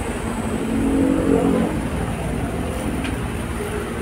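Steady background rumble of road traffic, with a louder pitched drone that swells briefly from about half a second in and fades by about two seconds.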